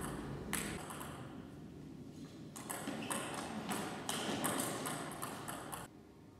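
Table tennis ball being hit back and forth in a rally: sharp clicks of the ball off the bats and table, one about half a second in, then a quick run of them for about three seconds.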